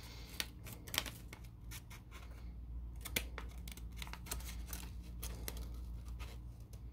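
Scissors snipping into folded paper in a series of short, quiet snips, with the paper crinkling as it is handled.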